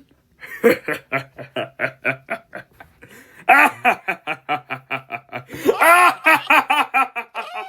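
A person laughing maniacally, a long run of rapid repeated "ha" sounds at about four or five a second, getting louder about three and a half seconds in.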